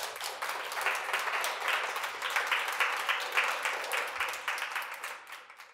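Audience applauding, a dense patter of many hands clapping that fades away near the end and then cuts off.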